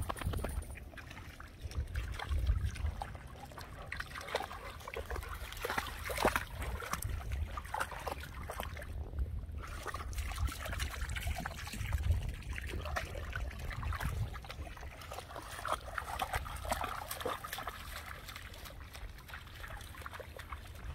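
Cane Corso dogs wading in shallow lake water, their legs and paws stirring it into irregular small splashes, sloshing and trickles, over a low steady rumble.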